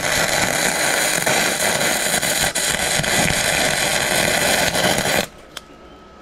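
MIG welder arc crackling steadily as a nut is welded onto a snapped exhaust stud, with the welder's heat setting turned up. The arc cuts off suddenly about five seconds in.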